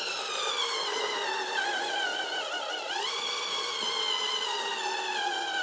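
Hurricane battery-operated citrus juicer's electric motor running while pressing a lemon: a steady whine whose pitch sinks slowly, dips about halfway through and then jumps back up.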